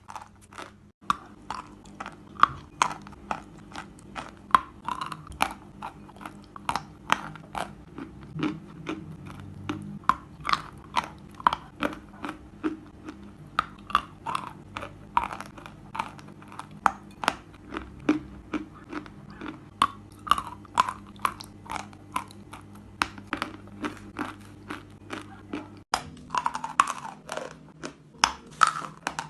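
A person chewing chalk close to the microphone: crisp crunches that follow one another quickly, two or three a second.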